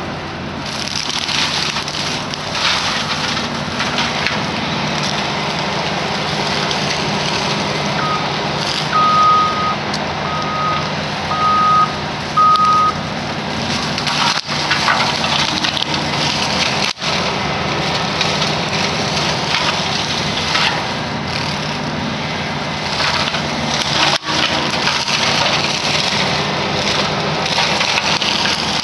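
Excavator brush mower running, its engine droning steadily while the cutting head grinds and shreds brush and small trees. About eight seconds in, the machine's travel alarm beeps five times, about once a second.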